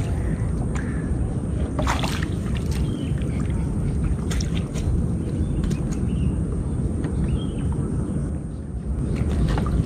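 Swamp water sloshing and splashing around a chest-deep wader as a landing net is swept and lifted through it, over a steady low rumble, with a few sharper splashes and drips.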